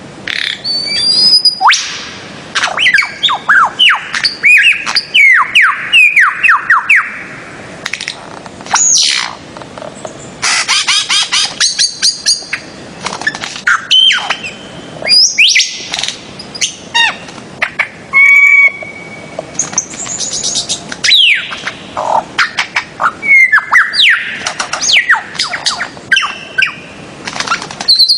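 Birds-of-paradise (Paradisaea) calling: quick series of loud calls, many sliding down in pitch, overlapping one another throughout.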